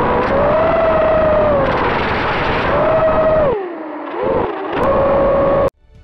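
X-class racing quadcopter's motors and propellers whining in flight, the pitch rising and falling with the throttle. The whine drops low a little past halfway, climbs back up, then cuts off suddenly near the end.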